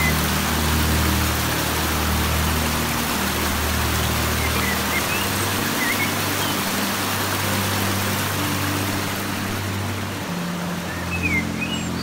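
Shallow stream rushing and splashing over rocks, a steady hiss of water, under soft background music of slowly changing low held notes. A few short high chirps come in about halfway and again near the end.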